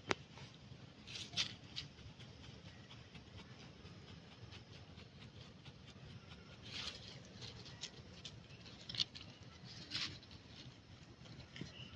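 Faint scattered rustling and light tapping, a few short louder rustles among many small ticks, with a sharp click right at the start.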